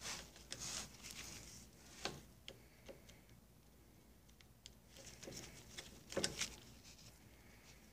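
Faint, scattered clicks and light metal taps as loosened screws are backed out of a Johnson 9.5 HP outboard's lower-unit gearcase.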